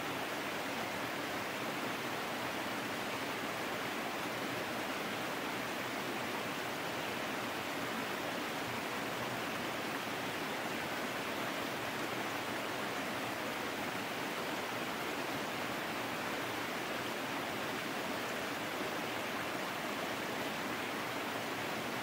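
Small waterfall cascading over rocks into a pool: a steady, unbroken rush of falling and splashing water.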